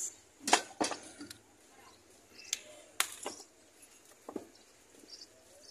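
Glassware and utensils being handled on a drink stall's table: a handful of sharp clinks and knocks at irregular intervals, the loudest about half a second in.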